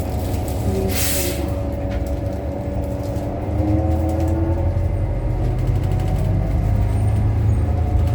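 New Flyer XDE60 diesel-electric hybrid articulated bus heard from inside while in service: a steady drivetrain hum with several whining tones, a short hiss about a second in, and the drivetrain growing louder about three and a half seconds in.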